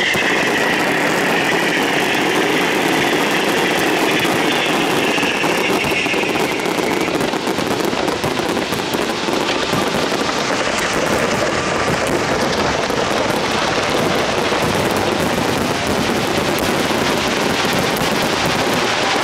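Fireworks barrage: many aerial shells bursting in quick, overlapping succession, the bangs and crackle blending into a steady, continuous din.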